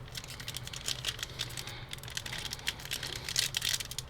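Wrapper of a sealed trading-card pack crinkling and crackling in quick small clicks as fingers pick and pull at it to open it. The pack is stubborn to open.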